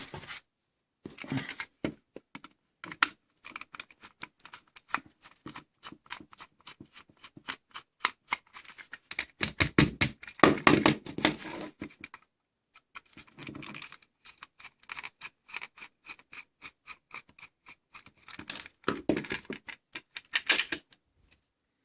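Irregular rapid clicking and scraping of small metal and plastic parts as a die-cast toy car is handled and taken apart, with denser, louder runs of clicks about halfway through and near the end.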